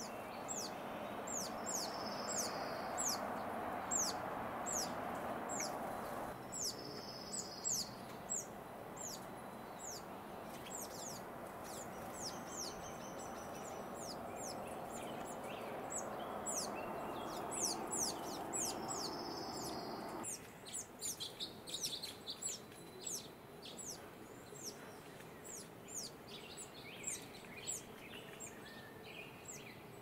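Wild turkey poults peeping: a steady run of short, high-pitched falling peeps, about two a second. Behind them is a steady rushing noise that cuts off suddenly about twenty seconds in.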